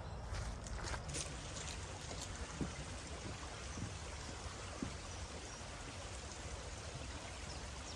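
Steady rushing of running water, such as floodwater flowing over a waterlogged path, with a few faint footstep clicks in the first second or so.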